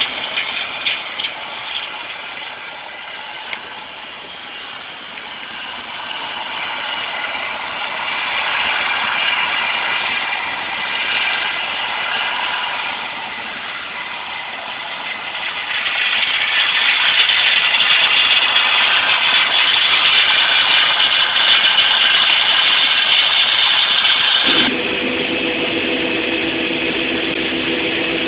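Heavy diesel harvest machinery running steadily. It grows louder in stages, then changes abruptly near the end to a steadier engine hum with a lower tone.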